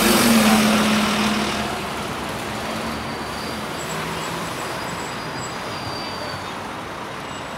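Road traffic on a busy street: a motor vehicle passes close in the first second or two with a loud rush and a steady hum, then traffic noise carries on steadily.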